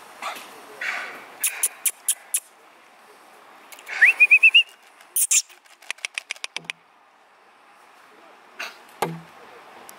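A person calling a puppy with runs of quick, sharp mouth clicks and, about four seconds in, a short rising whistle that breaks into a warble.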